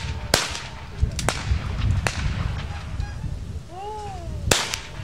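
Over-and-under shotguns firing at clay targets in Olympic trap: sharp single shots, two about a second apart near the start, another around two seconds in, and the loudest near the end. A brief voice call comes just before the last shot.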